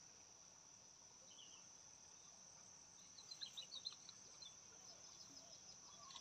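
Faint, steady, high-pitched trill of crickets, with a quick run of short high chirps about three seconds in.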